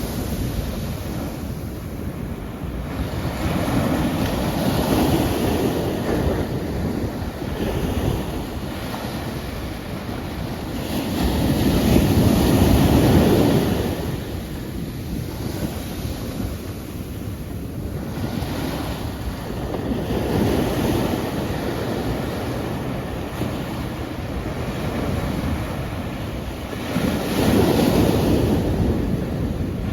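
Sea waves breaking and washing on a shore, swelling and ebbing about every seven or eight seconds, the strongest surge about twelve seconds in.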